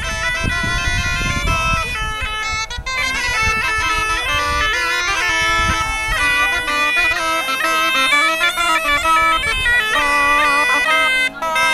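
Medieval bagpipes and a shawm playing a melody together over the bagpipes' steady drones.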